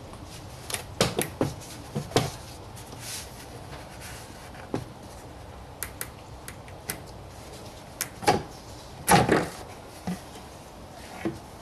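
Plastic rear light cluster of a Peugeot 307 SW being worked loose and pulled off the car body: a scattered series of sharp plastic clicks and knocks, the loudest about nine seconds in.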